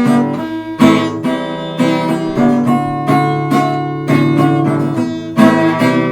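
Acoustic guitar strumming chords in an instrumental passage of a slow song, each strum ringing out and fading before the next.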